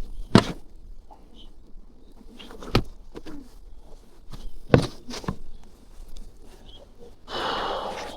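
Snow being cleared off a snow-covered car: a few sharp knocks, then a scraping sweep lasting about a second near the end.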